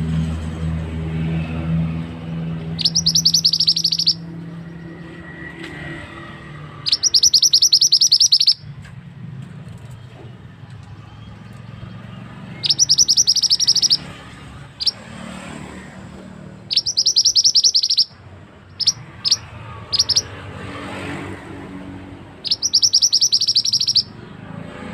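Song of a male mandi darah (mantenan) bird used as a lure call: a rapid high trill lasting a second or so, repeated five times a few seconds apart, with short single high chips between the later trills. A low steady rumble runs underneath.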